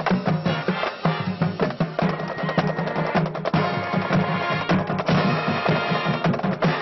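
Marching band playing, with the drumline loudest: dense snare and bass drum strokes over sustained low brass notes. This close to the drums, the other sections are hard to hear.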